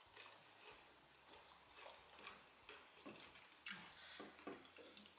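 Faint eating sounds: soft wet clicks and smacks of a mouth chewing plantain porridge, sparse at first and coming thicker and a little louder from about three seconds in.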